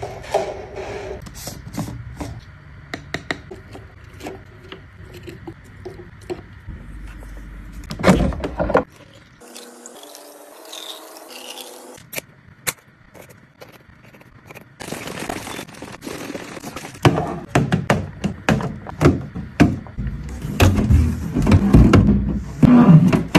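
Items being set down, slid and knocked into place while a fridge is restocked: a long run of separate knocks, taps and scrapes, busier and louder in the second half.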